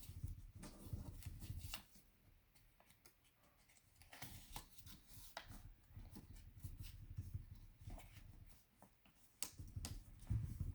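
A sheet of paper being folded and creased by hand: intermittent crisp rustles and crackles as the paper is handled and pressed flat, with soft handling bumps.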